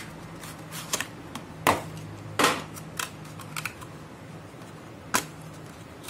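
Scattered sharp clicks and light knocks, about half a dozen, as a 2.5-inch hard drive and SSD are handled against the opened laptop's plastic and metal chassis, over a low steady hum.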